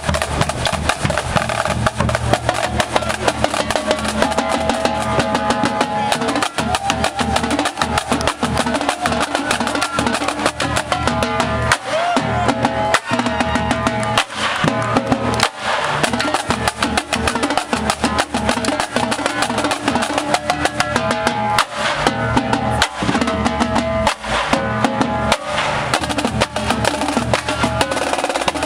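Marching drumline playing a fast, dense cadence on snare drums, multi-drum tenor sets and bass drums.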